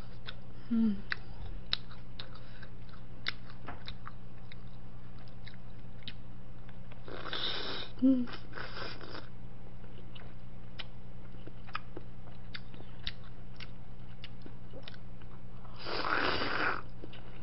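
Close-miked eating: chewing and small wet mouth clicks on Korean fish cake. Two longer slurps from a bowl of fish-cake broth come about seven seconds in and again near the end. A steady low electrical hum runs underneath.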